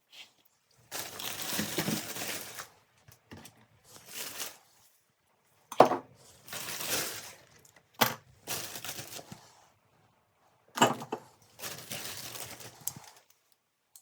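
Rustling, crinkling handling noises in five short bursts, three of them opened by a sharp knock or click, the loudest about six seconds in.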